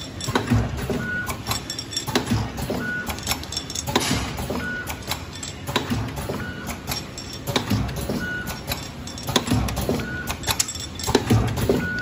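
Powder packing machine running: clattering and clicking from its mechanism and pneumatic sealing jaws, with a short high tone once per bag cycle, about every two seconds, matching a speed of 33 packs a minute.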